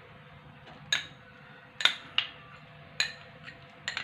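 Metal spoon clinking and scraping against a glass bowl as condensed milk is scraped out into a pan of boiling milk: about five sharp clinks spread over a few seconds, over a faint steady low hum.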